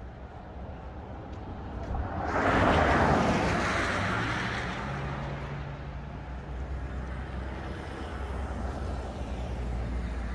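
A vehicle passing on the highway: road noise swells about two seconds in, is loudest around three seconds and fades slowly, over a steady low rumble.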